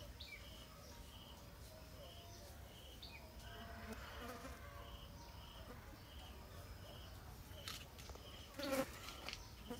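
Faint outdoor insect sounds: a fly or bee buzzing past briefly, over a soft high chirp repeating about twice a second. A short, louder sound comes near the end.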